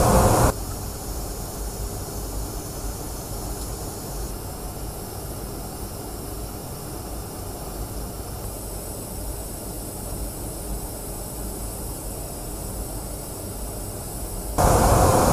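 Steady rumble and hiss of an aircraft in flight, heard from inside. A louder noise cuts off abruptly about half a second in and comes back just as abruptly near the end.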